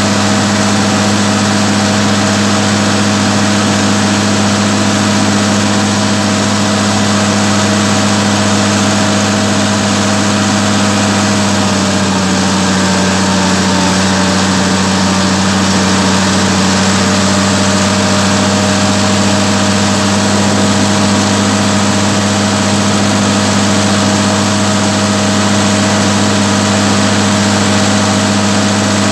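Massey Ferguson 399 tractor's six-cylinder diesel engine running steadily while driving, its engine speed dropping slightly about twelve seconds in.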